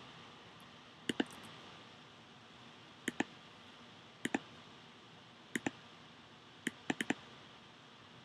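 Computer mouse clicking: quick pairs of clicks every second or so, with three in a row near the end.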